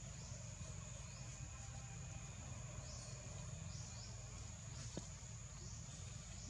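A steady high-pitched insect drone, with short rising chirps repeating irregularly over a low rumble. A single click about five seconds in.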